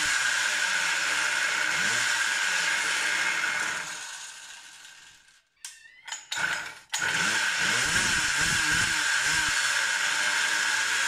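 Samurai 40cc two-stroke pocket-bike engine running and being revved in repeated throttle blips; the revs stop at the same ceiling each time, which the owner takes for a rev limiter around 10,000 rpm. The sound fades out about four seconds in, and after two short sputters the engine is running and revving again about seven seconds in.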